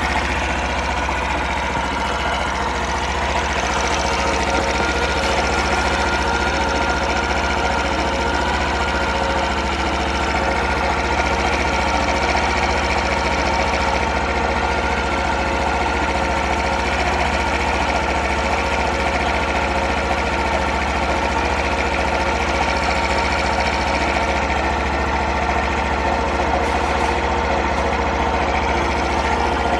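Honda Super Cub 50 FI's small air-cooled four-stroke single-cylinder engine idling steadily, with no change in speed. The engine runs without any abnormal noise, in good condition.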